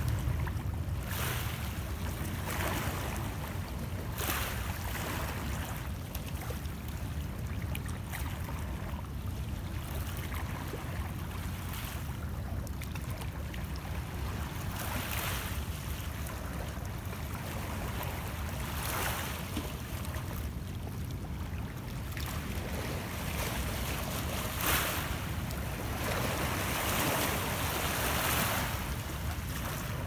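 Small lake waves lapping and splashing against shoreline rocks, a soft wash every second or two, over a steady low rumble.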